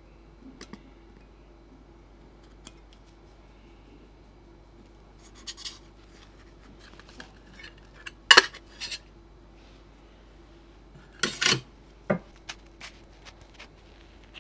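Handling sounds of a sponge cake on a metal wire cooling rack: a paper round is laid on and lifted off the cake, with light taps and clicks, a louder rustling scrape about eight seconds in, and a few more scrapes and a knock about eleven to twelve seconds in.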